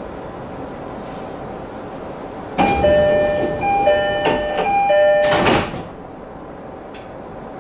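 Door-closing chime of an E531-series train, a descending two-tone ding-dong sounding three times, with a short loud rush of noise near its end as the doors shut.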